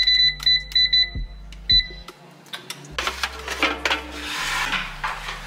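Digital air fryer's touch panel beeping: a quick run of short, identical beeps as its buttons are tapped repeatedly to set the cooking time, with one last beep just before two seconds in. A few seconds of rustling noise follow.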